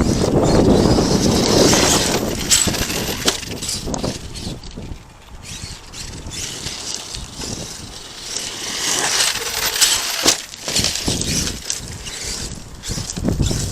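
Arrma Kraton 8S electric RC monster truck driving over gravel and rocks, tyres crunching and stones clattering, loudest at the start and again about nine seconds in, with scattered sharp clicks.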